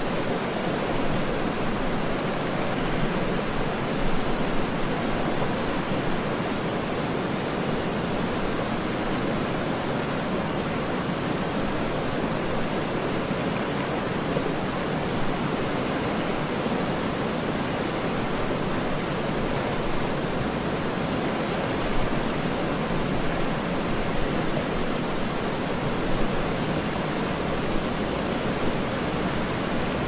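Steady rushing of a wide, fast, turbulent river: muddy brown water churning and breaking into white foam.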